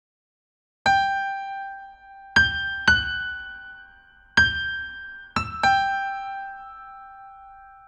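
Sparse piano music: six single high notes struck slowly one after another, starting about a second in. Each is left to ring and fade, and the last two come close together.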